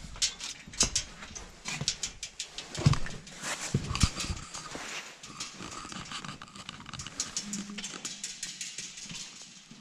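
Footsteps on a hard church floor with many irregular knocks and clicks of handling, and a few heavy thumps about three to four seconds in.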